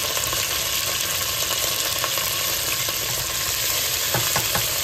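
Curry leaves, mustard seeds and fenugreek seeds sizzling steadily in hot sesame oil, stirred with a wooden spatula. A few sharp clicks come about four seconds in.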